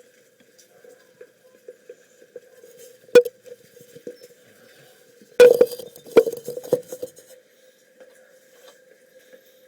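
Metal clinks and knocks over a faint steady hum: one sharp knock about three seconds in, then a short run of louder clatter between about five and seven seconds.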